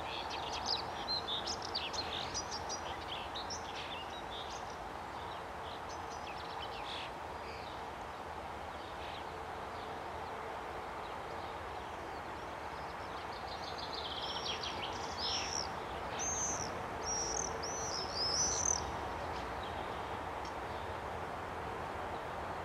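Small birds singing in the first few seconds and again in a longer run just past the middle, over a steady even hum from the M62 diesel locomotive's two-stroke engine idling.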